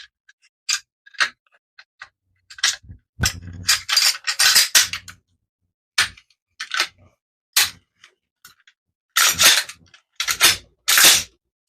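Metal parts of an AR-platform rifle clicking and clacking together as it is put back together by hand, in scattered sharp clicks with short bursts of clatter, the loudest about a third of the way in and again near the end.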